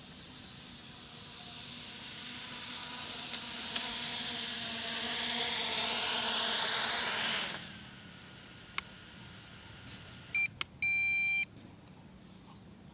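MJX Bugs 3 brushless quadcopter on three-blade 7045 propellers flying in close, its motor-and-prop whine growing louder, then cutting off suddenly as the motors stop. A click follows, then two short electronic beeps and one longer beep.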